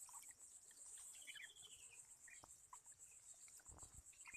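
Faint, steady high-pitched insect chorus with a fine pulsing trill, with a few faint short chirps now and then.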